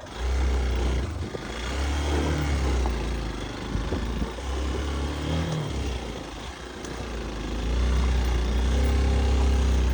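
Off-road motorcycle engine revving unevenly under load as the rider pulls away again on a steep, slippery hill. The revs rise and fall and pick up again about three-quarters of the way through.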